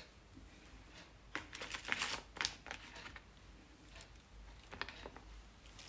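Faint light clicks and taps of kitchen handling while butter slices are laid on ribs in an enamel roasting pan, in a cluster between about one and a half and two and a half seconds in and a couple more near the end.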